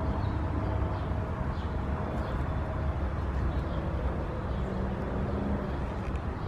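Steady low outdoor background rumble, with faint short high chirps now and then.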